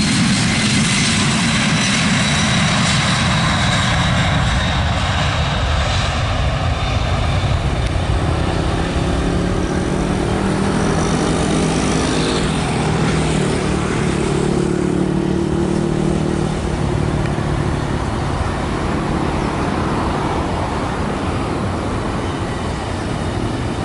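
Boeing 767-200 freighter's twin General Electric CF6 turbofans at takeoff power as the jet rolls, lifts off and climbs away. A high whine drops slowly in pitch over the first several seconds, then a low droning rumble takes over as it climbs out.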